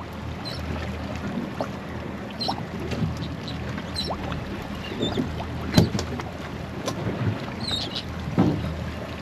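Deck of an offshore center-console boat at sea: a steady low hum under water lapping against the hull, with scattered knocks and clicks. The loudest knock comes about six seconds in and another near the end.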